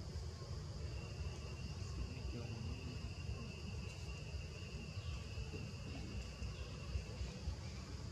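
Insects droning steadily: a high steady tone throughout, joined by a second, lower steady tone from about a second in until near the end, over a low rumble.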